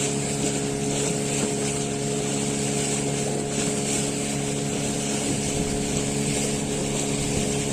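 Motorboat engine running steadily under way, holding one even pitch, with a constant hiss of wind and water over it.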